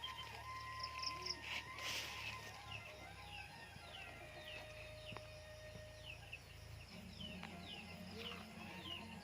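Birds calling outdoors: short, high, falling chirps repeated about once or twice a second, over a low steady hum.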